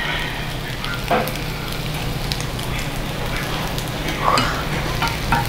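Thin-sliced pork belly sizzling steadily on a hot cast-iron pot-lid griddle, with a few light clicks of metal tongs on the pan as slices are laid down.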